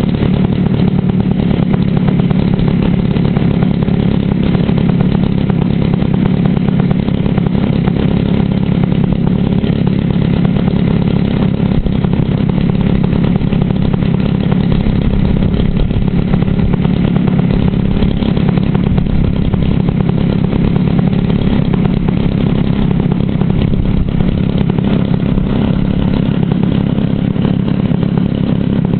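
RC model airplane engine running loud and steady at an even speed during a ground run-up.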